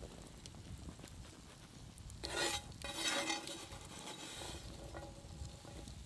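A spoon stirring and scraping thick oat porridge in a small metal pot over a campfire, with two louder scraping strokes about two and three seconds in.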